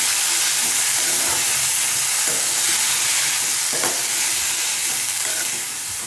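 Chopped green beans sizzling steadily in hot oil in a pan, just added to the fried onion and spices and being stirred in, with a few short scrapes of the spoon.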